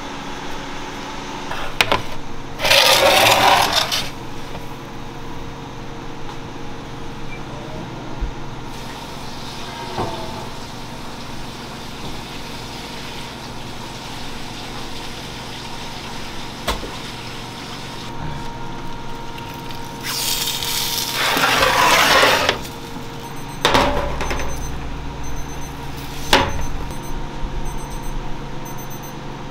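Commercial bakery kitchen: a steady machine hum, with two hissing bursts of a couple of seconds each, a few sharp knocks, and a regular electronic beeping starting near the end.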